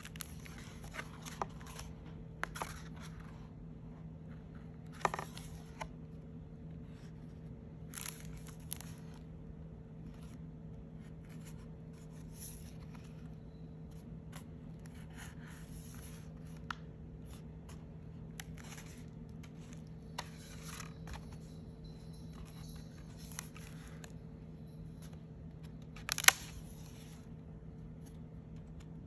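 Stiff kraft-paper pages of a handmade mixed-media art journal being turned by hand: short, irregular rustles and flaps every second or two, with one sharper crackle near the end, over a steady low hum.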